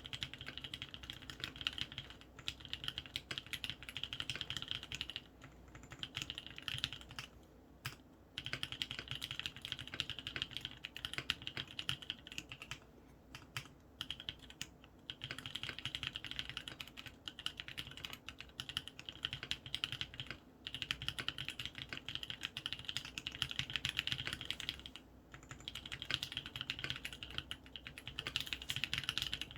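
Continuous typing on a Matrix Noah mechanical keyboard with lubed Kailh Cream switches, an aluminium plate and weighted aluminium case, and ePBT keycaps: fast runs of key clacks broken by a few short pauses.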